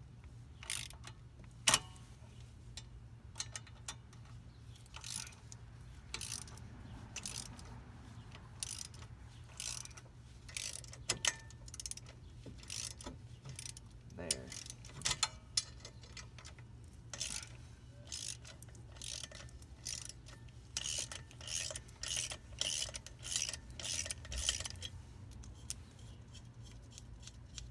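Socket ratchet clicking in short, irregular runs as bolts are screwed into the jacking holes of a seized, corroded rear brake rotor to press it off the hub.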